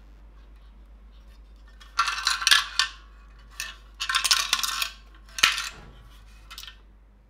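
Vintage Wonder battery lantern turned over in the hands, its steel case and swinging metal handle clinking and rattling in several short bursts.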